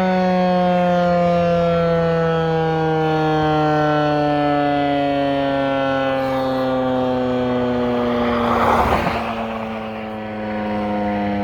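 ASC T-128 outdoor warning siren sounding a steady multi-harmonic tone that slowly falls in pitch as it winds down. A short rush of noise rises over it about nine seconds in.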